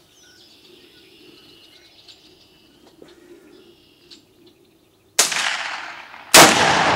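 Two rifle shots from an M1 rifle about a second apart, the second louder, each ringing out afterwards. Before them, faint birds chirping.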